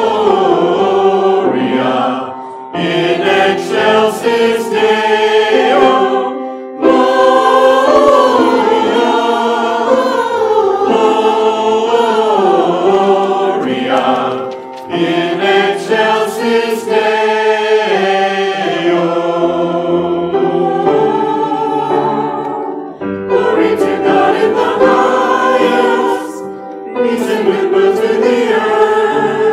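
Church choir singing a Christmas cantata number, in phrases broken by brief pauses.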